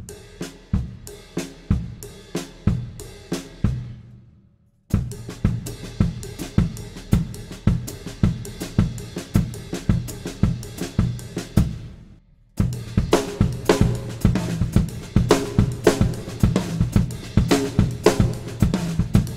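Acoustic drum kit playing a groove built from a three-note sticking set over 4/4, a polymetric pattern: bass drum, snare ghost notes and cymbal and hi-hat strokes in a steady run of strokes. The playing breaks off briefly twice, about four and a half seconds in and again about twelve seconds in. It comes back louder after the second break.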